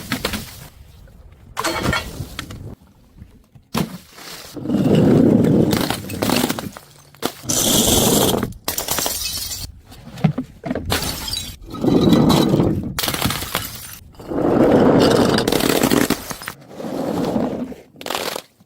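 Glass bottles hitting stairs one after another, smashing and clattering. There are several loud crashes a few seconds apart, one with a bright, high shatter of glass about eight seconds in.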